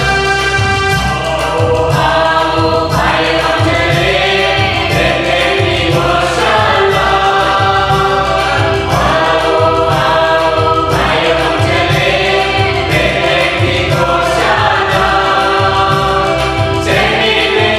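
Small mixed choir of men and women singing a Christmas carol, accompanied by a Yamaha electronic keyboard with a steady beat. Held keyboard notes are heard alone at first, and the voices come in about three seconds in.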